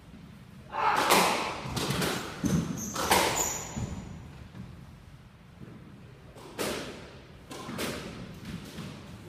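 Squash rally: the ball cracking off rackets and thudding against the court walls, a quick run of sharp hits in the first three seconds or so, ringing in the court, then a few scattered thuds. A brief high squeak sounds in the middle of the hits.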